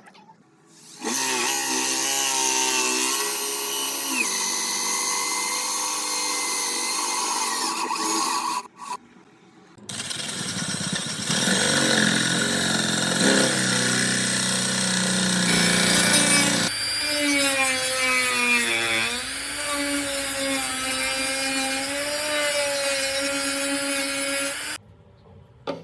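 A power tool running in three long bursts, its motor pitch wavering as if under changing load, with abrupt starts and stops.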